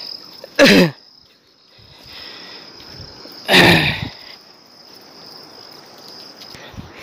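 Insects chirring steadily at a high pitch, with two short, loud vocal sounds from a person, one about a second in and one halfway through, each falling in pitch.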